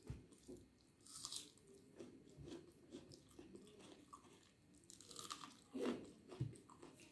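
Faint close-up chewing and mouth sounds of someone eating rice and egg curry by hand, with a couple of louder, brief crunchy bites about a second in and again around five seconds in.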